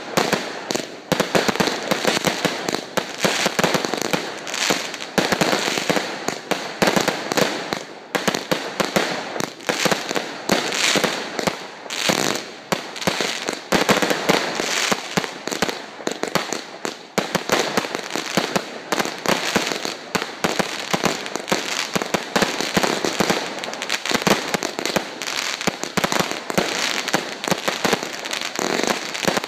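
Aerial fireworks bursting overhead in a rapid, unbroken barrage of many sharp bangs a second.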